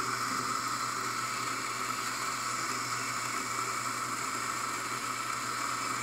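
Eureka Mignon Libra electric flat-burr coffee grinder grinding a dose of espresso beans: a steady motor drone under an even grinding whir.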